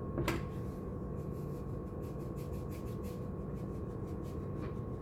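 Steady low electrical hum with a faint constant tone, a soft click about a third of a second in, and faint, rapid light ticks through the middle.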